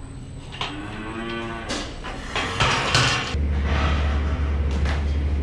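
A heifer moos once about half a second in, followed by a few knocks, then a steady low hum starts about three seconds in and becomes the loudest sound.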